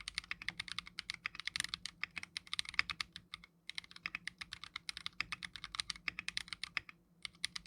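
Fast typing on a custom mechanical keyboard with an acrylic housing, 冰魄 (Bingpo) switches and clear Akko keycaps: a quick run of crisp keystroke clicks, many a second, broken by two short pauses, about three and a half seconds in and near seven seconds.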